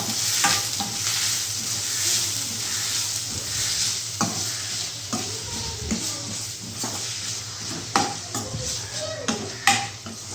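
Onion, green chilli and curry leaves frying in hot oil in a kadai. They sizzle steadily while a ladle stirs and scrapes the pan, with a few sharp knocks. The sizzle is loudest at first and eases off over the next few seconds.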